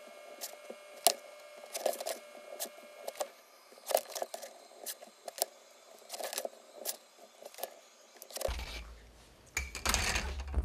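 A steel ruler and pencil handled on mat board while lines are ruled: irregular sharp clicks and taps, roughly one or two a second, as the ruler is set down and shifted.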